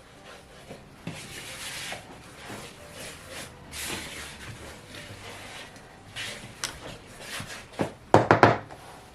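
Dry flour mix being stirred together in a mixing bowl: soft, uneven scraping and rubbing of the utensil through the flour, then a few sharp knocks about eight seconds in.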